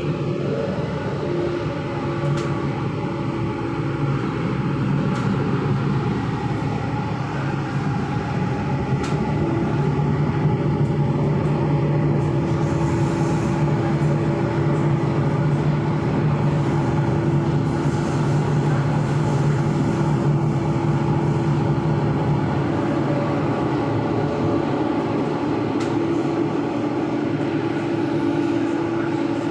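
MRT subway train running through a tunnel, heard from inside the front car: a steady rumble with a steady hum in it, building a little over the first ten seconds.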